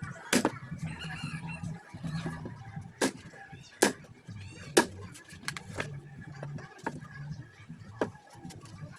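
Sharp knocks, about six of them at uneven spacing, over a low steady background hum, typical of hand work while building a speaker box.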